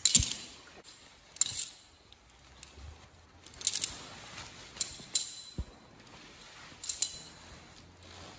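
Metal hardware on firefighter turnout pants clinking and jangling about half a dozen times as the pants, boots already inside, are stepped into and pulled up, with a couple of low thumps.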